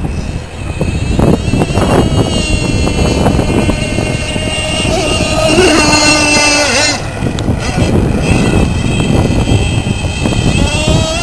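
Gas-powered RC speedboat's small two-stroke engine running at high revs, a high whine that rises and falls in pitch with the throttle as the boat races across the water. Its pitch drops as it passes close about six seconds in.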